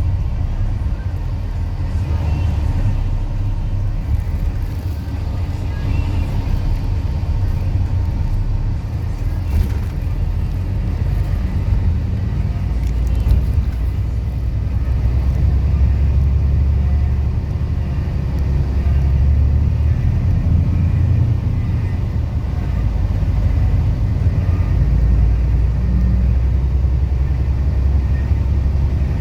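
Steady low rumble of a vehicle running, growing a little stronger about halfway through.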